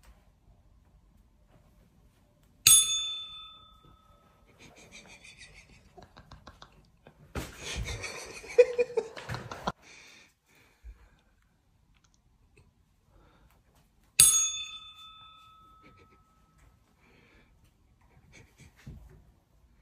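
A bright bell-like ding rings out twice, about eleven seconds apart, each ringing away over about a second. Between the two, a few soft ticks and a brief patch of rustling noise.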